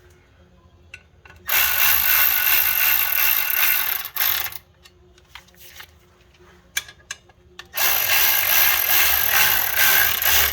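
Socket ratchet wrench running in clutch pressure plate bolts, its pawl clicking rapidly in two long spells of about two and a half seconds each, with a few single clicks and knocks between.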